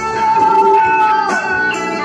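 Live rock band in an instrumental break: an electric guitar holds one long high note that bends down in pitch a little over a second in, over bass and drums.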